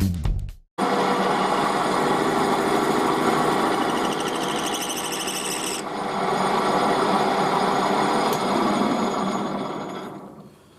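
A power tool running steadily with a mix of hiss and steady tones, shifting a little partway through and then winding down near the end.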